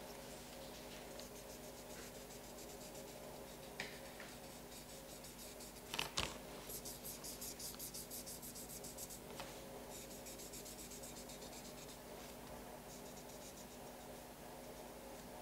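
Colouring strokes scratching on paper, quick and back-and-forth, coming in bursts, with a sharp click a little before the first burst.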